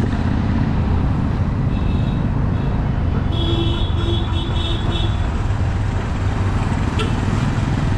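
City road traffic: a steady rumble of engines and tyres. Midway through, a vehicle horn sounds in several short honks.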